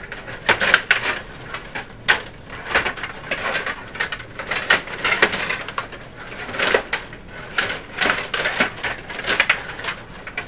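Stiga table hockey being played: irregular flurries of plastic clacking and rattling as the control rods are pushed and spun, with sharp knocks of the puck against the players and boards.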